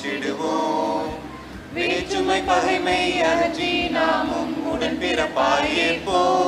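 A group of women singing a Tamil Christian song together into a microphone, with a short break between phrases about a second in.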